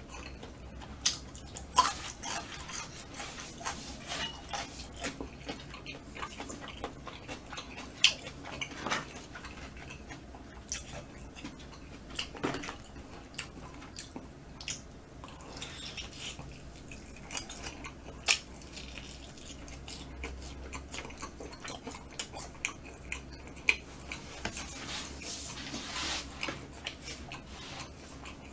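Close-miked eating of smoked chicken: chewing and biting, with meat pulled apart by hand and many scattered sharp clicks.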